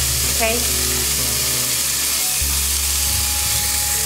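Small lobsters sizzling steadily as they pan-fry in a little camellia oil over low heat.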